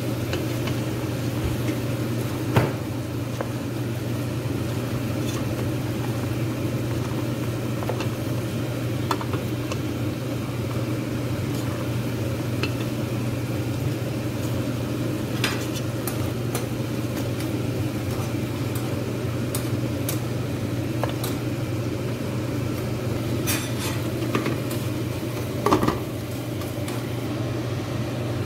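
Spoon stirring chicken, potatoes and tomato in a steel cooking pot on the stove, with a few sharp clinks against the pot, over a steady low hum and a faint sizzle.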